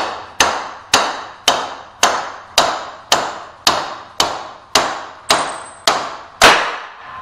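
Red soft-faced mallet striking the top end of a centrifugal pump shaft, driving the rotating assembly down through its bearing housing. There are about a dozen even blows, roughly two a second, each ringing briefly, as the assembly is tapped down until it bottoms out.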